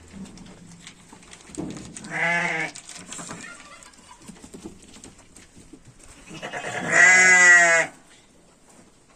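Dorper sheep bleating twice: a short bleat about two seconds in, then a longer, louder, wavering bleat near the end.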